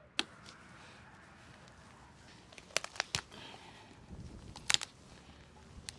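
A few sharp clicks and knocks at irregular intervals: one just after the start, three in quick succession about three seconds in, and a louder pair near five seconds, over faint background noise.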